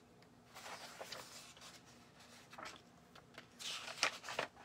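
Paper pages of a booklet rustling as they are handled and turned: a few soft swishes, the loudest near the end with a couple of crisp flaps.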